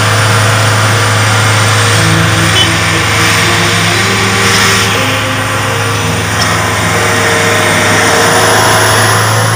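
Engine and road noise of a moving vehicle heard from inside its cab: a steady low engine drone under a constant rushing noise.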